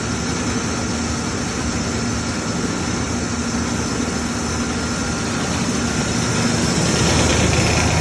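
Rice mill machinery running steadily: a dense machine noise with a constant hum, growing a little louder near the end.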